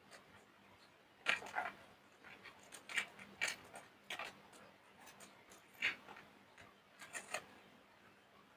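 Soap being crushed by hand: a series of short, crisp crunches, about ten of them at irregular intervals, with quiet gaps between.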